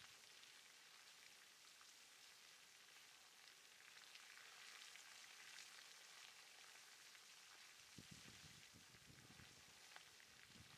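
Faint crackling and sizzling hiss of a molten lava river pouring down a small lava fall. Low gusts of wind buffet the microphone from about eight seconds in.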